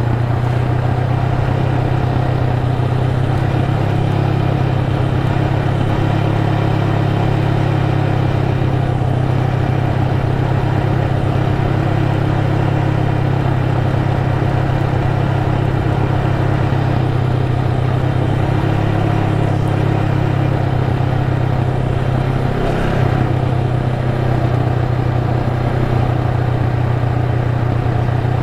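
Honda Rebel 500's parallel-twin engine running at a steady cruising speed, a steady low drone. The note briefly drops and picks up again about two-thirds of the way through.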